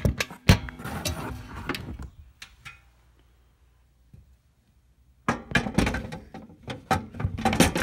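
Metal cover panel being fitted onto an inverter load-center enclosure: a sharp knock, a loud thunk about half a second in and a run of clattering knocks, then after a pause a second burst of rattling knocks and clanks about five seconds in.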